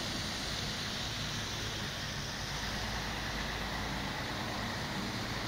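Articulated city bus driving past close by: its engine running steadily under the hiss of tyres on a wet, slushy road, getting louder right at the start.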